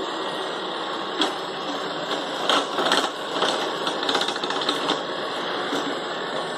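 iRobot Roomba 675 robot vacuum running, with a series of sharp clicks and knocks from about a second in until about five seconds in.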